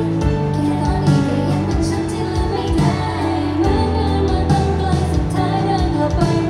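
Pop music played through a concert sound system, with a female voice singing over the backing track.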